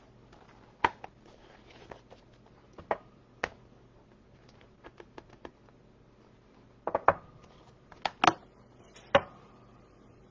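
Hard plastic clicks and knocks as a clear acrylic stamping block and a clear plastic stamp case are handled and set down on the desk. The taps come irregularly, with a cluster of sharper knocks near the end, a couple of them leaving a brief ring.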